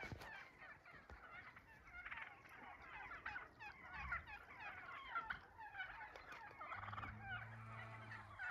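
A flock of Merriam's wild turkeys gobbling, with many gobbles overlapping at once. A low steady hum joins for about a second and a half near the end.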